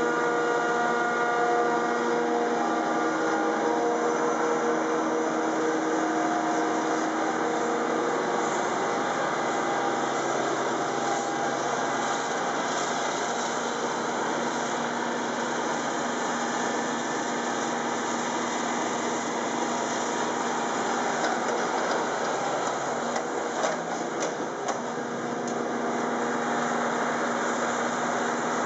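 Claas Jaguar forage harvester running as it chops maize: a steady, dense mechanical drone, with several steady whining tones over roughly the first eight seconds.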